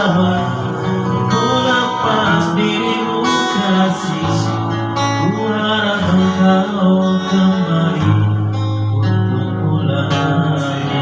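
Acoustic guitar music with a voice singing long held notes.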